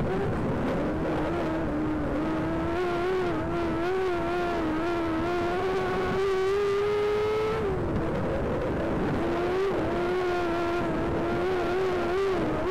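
Race car engine held at high revs, its note wavering slightly. It dips briefly and climbs back near the start, about eight seconds in, and near the end, as the throttle is lifted and reapplied.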